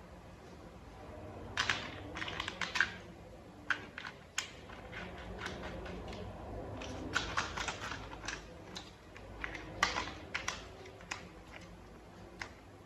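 Small plastic toy parts clicking and knocking together as they are handled and fitted, in irregular clusters of light clicks.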